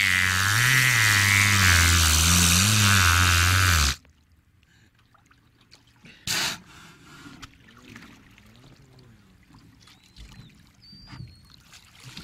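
Killer whale making a loud, droning, engine-like buzz, imitating a boat motor, its pitch wavering up and down. The buzz stops abruptly about four seconds in, leaving water lapping and trickling, with one brief loud burst of noise about six seconds in.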